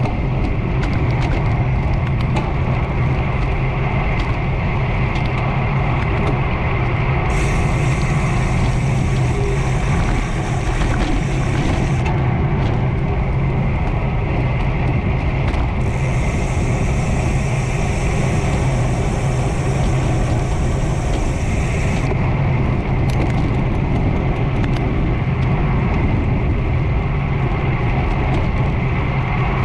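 3T Strada road bike ridden along a road: steady wind and tyre noise with light ticks and rattles from the bike. Two stretches of a high hiss, one about seven seconds in and one about sixteen seconds in, each lasting a few seconds.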